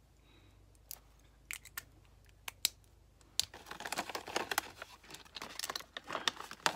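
Lipstick gift-set packaging being handled: scattered clicks, then denser crinkling and crackling from about halfway through.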